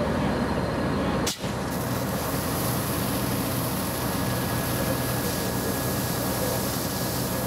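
Fire apparatus engines and pump running with a steady low hum. After a brief break about a second in, the hiss of a fire hose stream spraying water onto the pavement joins.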